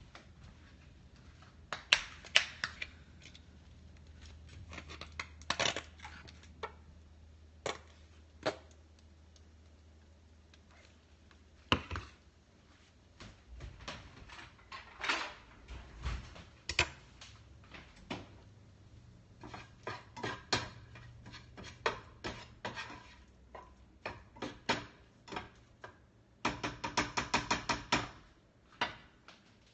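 Scattered clicks, knocks and clinks of kitchen utensils and dishes, over a low steady hum that stops about twelve seconds in. Near the end comes a quick run of scrapes and taps as a spatula works in a skillet.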